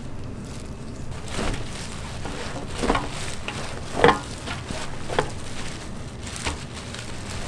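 Beef sizzling on a double-layered cast-iron grill plate over charcoal, a steady hiss broken by about five sharp clicks or knocks, the loudest about four seconds in.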